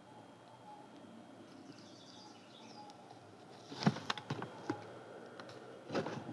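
Scissors cutting paper: a quick cluster of sharp snips about two-thirds of the way in and another just before the end.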